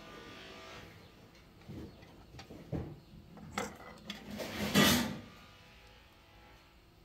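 Handling a small diaphragm carburetor and its loose parts over a steel parts tray: a few light clicks and taps, then a louder clatter a little under five seconds in.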